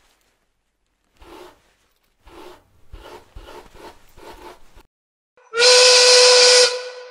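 A heavy box scraped across a wooden floor in a run of short rubbing strokes, about two a second. Then comes a loud, hissing whistle blast, about a second long, at one steady pitch.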